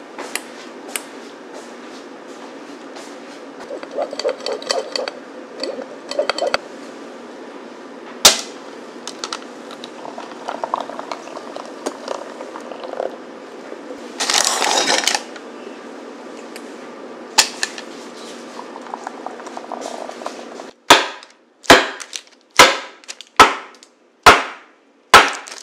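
A filled cake pan banged down hard on a stone countertop six times, about once a second, each a sharp loud bang with a short ring: tapping the cheesecake batter to knock out air bubbles before baking. Quieter kitchen clatter and a few clicks come before the bangs.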